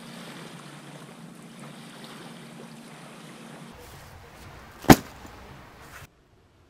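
Shoreline ambience: a steady wash of water and air noise with a low hum. After a change in the sound a single sharp knock comes about five seconds in, and the sound cuts off abruptly about a second later.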